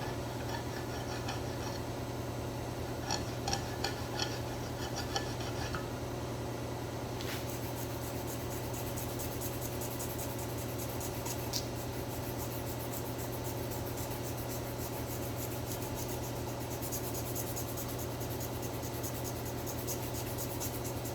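A metal file rasping over the exhaust mounting face of an LS cylinder head, cleaning it up after the broken exhaust bolts have been extracted. A few light clinks of metal being handled come in the first few seconds, and the filing strokes run on from about seven seconds in, over a steady low hum.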